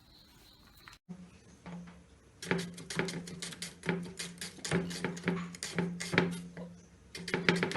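Kitchen knife chopping onions on a cutting board: sharp knocks coming roughly every half second, starting about a second in and quickening into close runs near the end.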